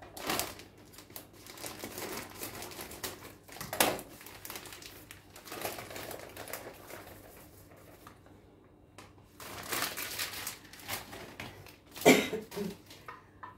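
Plastic cottage-cheese packets crinkling and rustling as they are handled and squeezed out into a bowl, in several irregular spells with a short gap about two-thirds of the way in.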